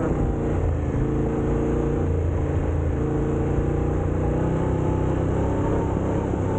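Motorcycle engine running steadily while riding, with a dense low rumble beneath it.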